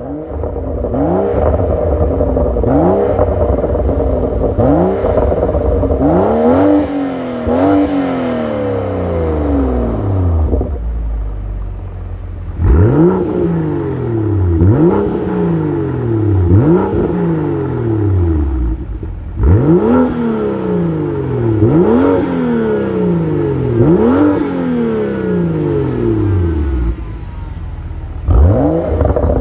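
BMW N55 turbocharged straight-six revved over and over in quick blips, the pitch shooting up and sliding back down each time, with a couple of short breaks.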